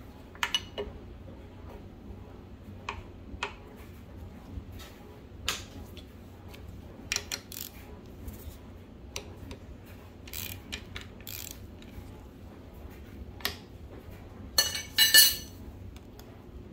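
Steel wrenches clinking against the camshaft armature and its bolt on a Mercedes M119 V8 as the armature is held and its bolt loosened. Scattered light clinks, with a louder run of clinks near the end.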